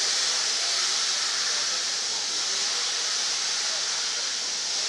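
Steam hissing steadily as a steam-hauled train pulls away, with no separate exhaust beats standing out.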